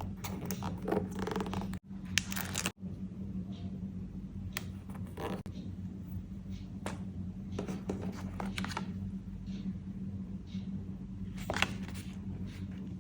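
Close-up handling of paper and stationery: scattered short rustles, scrapes and clicks, busier in the first few seconds and with a sharper click near the end, over a steady low hum.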